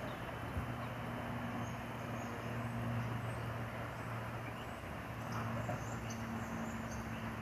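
Metro-North electric commuter train pulling away from the station, heard as a steady low hum, with a few faint high chirps.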